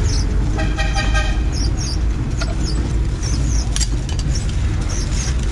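A vehicle horn toots once, briefly, about half a second in, over a steady low rumble of street traffic.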